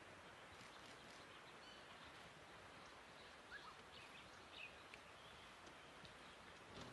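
Near silence: faint outdoor ambience with a steady low hiss and a few brief, faint bird chirps in the middle.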